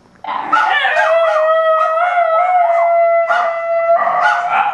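A basenji and a miniature Australian shepherd howling together. One long held howl runs under a second, wavering yodel-like voice, and it breaks into short yelps about three seconds in and again near the end.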